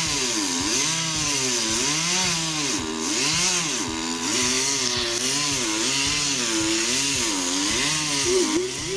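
Two-stroke chainsaw cutting wood. Its engine pitch sags and recovers over and over, about once a second, as the chain bogs in the cut and frees up again.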